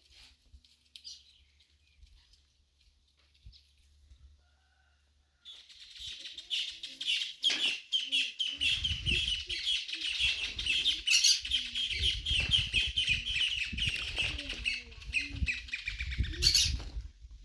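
A bird calling in a loud, rapid, continuous chatter of high notes. It starts about five seconds in and stops shortly before the end. A low rumble runs underneath for much of it.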